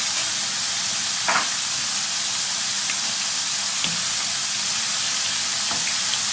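Potato slices deep-frying in a wide pan of hot oil: a steady, dense sizzle. A few short knocks come through, about a second in and twice more later, as a wooden spatula stirs prawns frying in paprika oil in the pan beside it.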